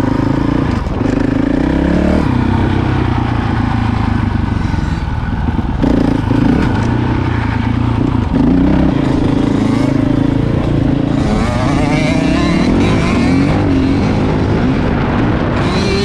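Honda CRF450L single-cylinder four-stroke engine pulling at low revs in first gear, lugged down near idle without the clutch, its pitch rising and falling a little with the throttle.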